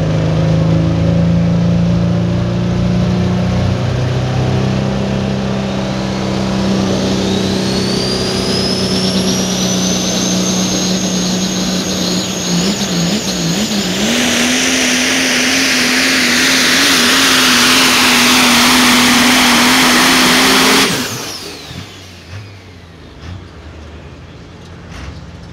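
Super stock diesel 4WD pulling truck running hard under load, with a high whine rising over several seconds as its turbochargers spool up, and the loudest stretch in the second half. About 21 seconds in, the engine is shut off suddenly and the turbo whine winds down.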